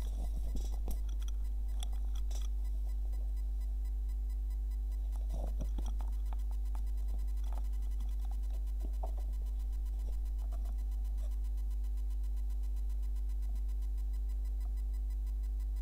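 Steady low electrical hum with a few fainter steady tones over it. Light knocks and rustles of the camera being handled come in the first few seconds and again around six seconds in.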